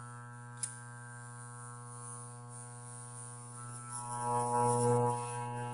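Armature growler running with a steady, deep electrical hum while a steel blade is held over the armature's laminations, with a single click about half a second in. The hum swells around four to five seconds in, then cuts off abruptly near the end. The armature shows no shorted coil so far.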